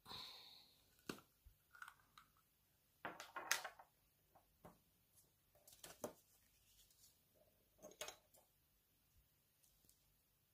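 Faint handling sounds: the lid of a small glass ink jar unscrewed with a short scrape at the start, then scattered clicks and taps as the lid, paper and pen are handled on a stone tabletop, the loudest cluster about three seconds in.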